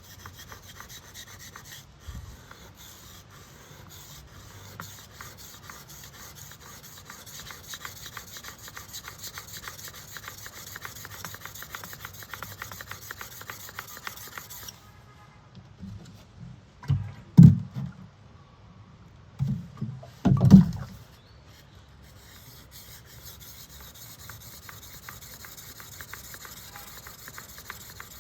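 A knife blade stroked back and forth over the fine side of a whetstone, a steady run of scraping rubs. About halfway through the strokes stop, there are a couple of loud low thumps, and then the sharpening strokes start again.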